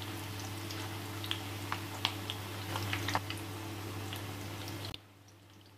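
Chicken kababs shallow-frying in hot oil: a steady sizzle with scattered pops and crackles. It cuts off suddenly about five seconds in.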